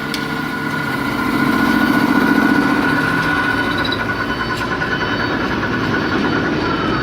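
Machine tool running steadily with a high whine over a lower hum; near the end the whine begins to drop in pitch as it slows.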